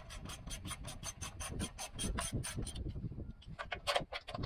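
Hand ratchet wrench clicking rapidly, about eight clicks a second, as the upper control arm mounting bolts are backed out; it stops about two and a half seconds in, then clicks a few more times near the end.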